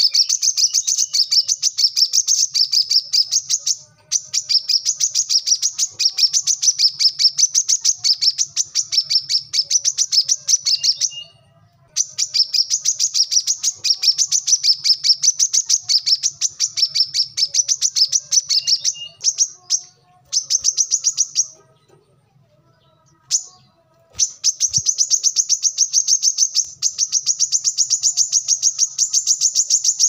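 Brown-throated sunbird (kolibri kelapa) singing: long runs of rapid, high, chattering notes, broken by short pauses and one longer gap about two-thirds of the way through.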